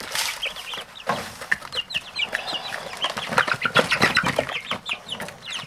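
A brood of young chicks peeping: many short, high chirps overlapping one another. Knocks and rustling from a plate feeder of feed being handled among them come from about a second in until near the end.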